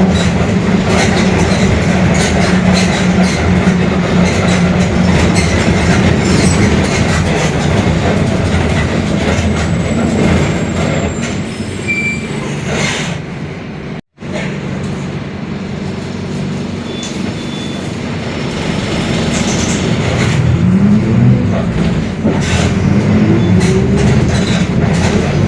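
Mercedes-Benz OF-1721 Bluetec 5 city bus running under way: a steady drivetrain drone over constant rattling and clatter, with the differential growl that the uploader points out in this bus. A rising whine comes in about three quarters of the way through, and the sound cuts out for an instant about halfway.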